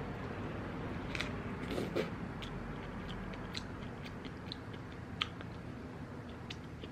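A person chewing a strawberry with chocolate hazelnut spread close to the microphone: small wet mouth clicks scattered throughout, with a soft rustle about one and two seconds in.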